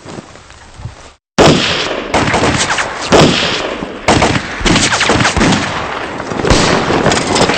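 Heavy battle gunfire: many shots overlapping in rapid succession, starting abruptly about a second in after a faint hush.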